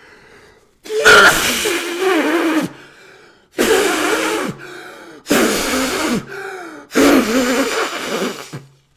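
A man's sneeze attack: four loud, long, drawn-out sneezes in a row, each carrying a voiced wail, with quieter gasping breaths between them.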